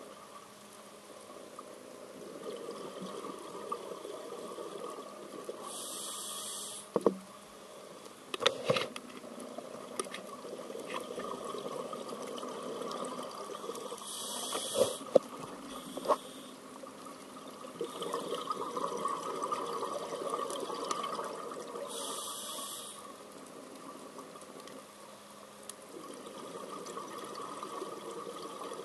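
Scuba diver breathing through a regulator underwater: a short hiss on each inhale about every eight seconds, then a longer rushing, bubbling stretch as the exhaled air leaves. A few sharp knocks come in between.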